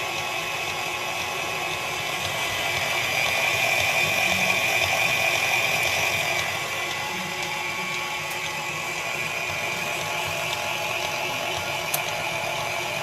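KitchenAid stand mixer's motor running at low speed, driving its shredder attachment while block cheese is pushed through. It makes a steady mechanical whine that grows louder for a few seconds about two seconds in, then settles back.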